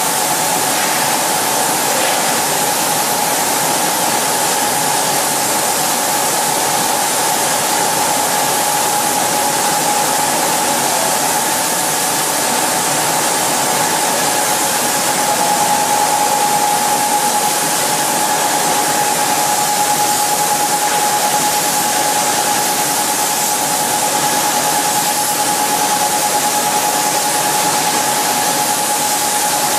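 Automatic spray guns on a reciprocator in a fluorocarbon-coating spray booth, atomizing paint with a steady loud hiss, with a steady tone running under it.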